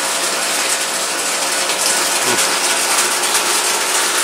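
Aquarium aeration: a steady, dense fizzing and crackling of air bubbles breaking at the water surface, with a faint steady hum underneath.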